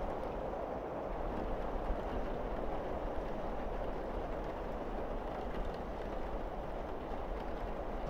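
Steady rain falling on a roof and windows: a dull, even rush with a few faint ticks of drops.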